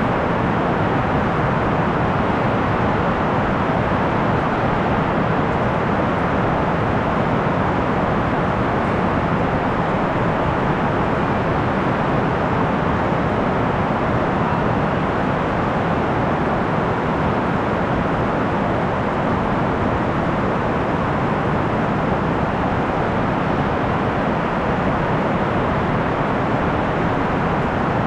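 Heavy rain falling steadily: an even, unbroken rushing noise that stays at the same level throughout.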